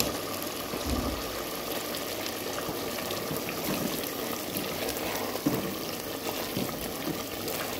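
Thick curry simmering and bubbling in a pressure-cooker pot as a wooden spoon stirs it, with a few soft knocks of the spoon against the pot.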